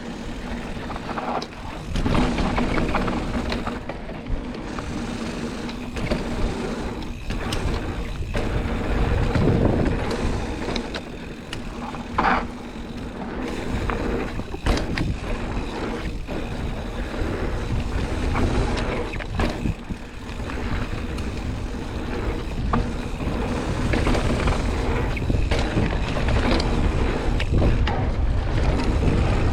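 A mountain bike running down a rough dirt trail: wind buffeting the microphone, tyres rumbling over the ground, and scattered sharp rattles and knocks from the bike over bumps.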